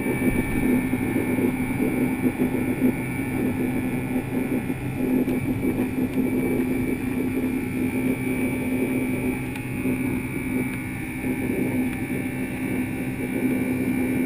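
Jet airliner's engines at takeoff thrust heard from inside the passenger cabin during the takeoff roll and climb-out: a loud, steady rumble with a steady low hum and a fainter high whine over it.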